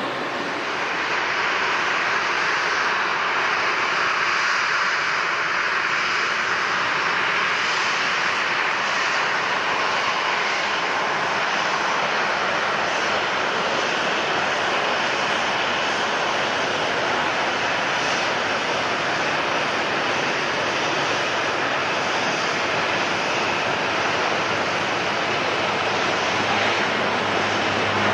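Airliner engines running: a steady rushing noise that swells in over the first second and then holds even.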